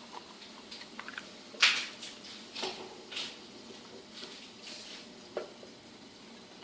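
Kitchen utensils and dishes being handled: scattered light clicks and taps, with a few short scrapes, the loudest about one and a half seconds in.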